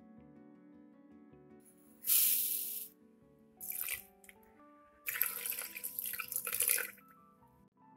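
Ingredients being poured into a plastic blender jar over background music: a short pouring hiss about two seconds in, the loudest sound, and a brief splash a second later. Then water pours in for about two seconds near the end.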